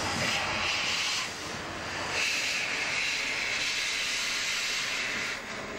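Steam hissing from a metre-gauge 230-type steam locomotive, the 'Bretonne': a one-second burst, then after a short pause a longer, steady hiss of about three seconds.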